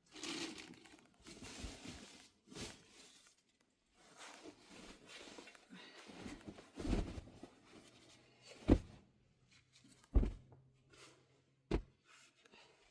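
Rustling and scraping handling noises, then three heavy thuds about a second and a half apart, with a faint low hum behind them.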